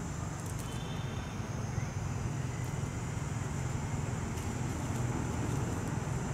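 Steady outdoor background noise: a low rumble with a faint, even high-pitched hiss above it and a few faint clicks. No animal call stands out.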